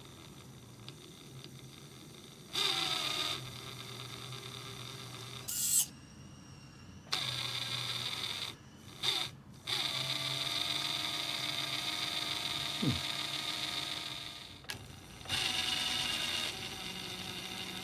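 Traxxas TRX-4 RC crawler's electric motor and freshly greased transmission spinning up in several throttle bursts, a steady whine of gears and drive shafts that winds down between bursts. No ticking is left: only normal gear and drive-shaft noise.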